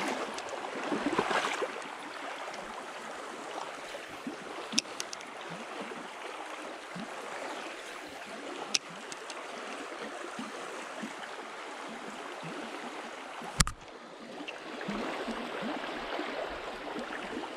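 Shallow stream water running and rippling over rocks in a steady wash, with a few sharp clicks and one louder knock about two-thirds of the way through.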